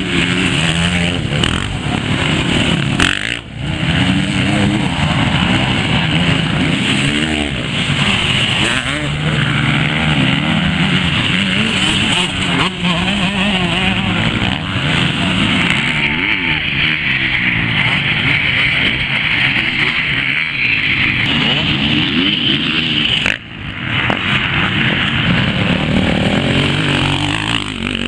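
Off-road enduro dirt bikes racing past one after another, their engines revving up and down hard as they churn through deep mud and standing water. The engine sound breaks off sharply twice.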